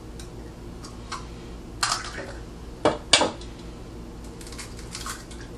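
Eggs being cracked against a mixing bowl and broken into it: a few sharp knocks and cracks, the loudest about three seconds in.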